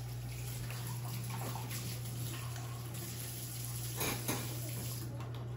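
Steady low hum with faint background noise; about four seconds in, two short, louder sounds as iced coffee is sipped through a metal straw from a glass mason jar.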